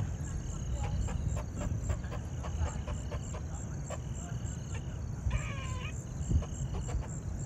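Insects chirping in a steady, even pulse of high chirps over a low outdoor rumble, with a short warbling call a little after five seconds in.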